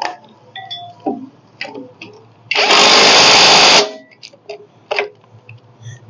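Cordless impact wrench hammering for a little over a second, about two and a half seconds in, running down the idler pulley bolt on the fan-belt drive; light clicks of the socket and tool being handled before and after.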